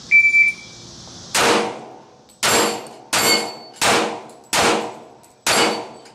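A shot timer's short start beep, then six pistol shots fired over about four seconds, several of them followed by the metallic ring of steel plate targets being hit.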